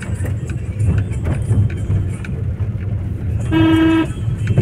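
Steady low rumble of a car driving on a wet road, heard from inside the cabin, with irregular taps of rain on the car. About three and a half seconds in, a car horn sounds once for about half a second, the loudest sound.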